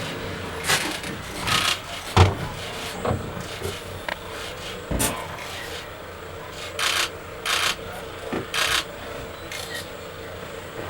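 Irregular knocks and brief scraping or rustling sounds over a faint steady hum, with a sharp knock about two seconds in and several short scrapes later on.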